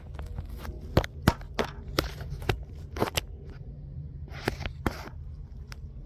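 A run of sharp, irregular clicks and knocks, about a dozen, the loudest a second or so in, with two short scraping sounds near the middle, over a steady low hum.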